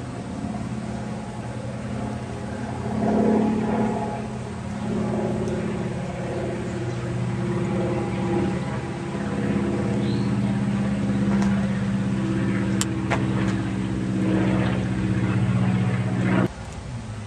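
An unseen engine running with a steady hum that grows louder a few seconds in and holds, then stops abruptly near the end. A couple of sharp clicks come about two-thirds of the way through.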